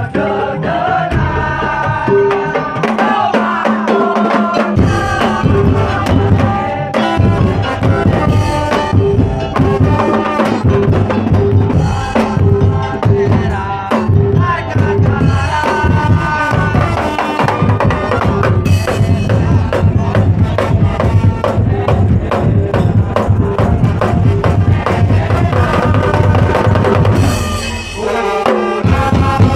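Madurese daul music playing loud: a melody over drums and percussion, with heavy bass drum coming in about five seconds in and dropping out briefly near the end.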